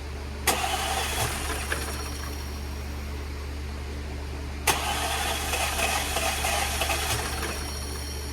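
Starter cranking the freshly rebuilt supercharged 3.0 V6 of an Audi Q5 twice on its first start attempt after a timing chain replacement, each try beginning suddenly and lasting about two to three seconds. A steady low hum sits underneath.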